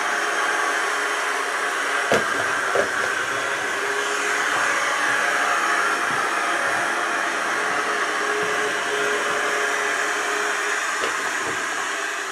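Clever&clean M-series 002 robot vacuum cleaner running, its suction fan giving a steady whirr with a faint whine. Two sharp knocks come about two seconds in, less than a second apart.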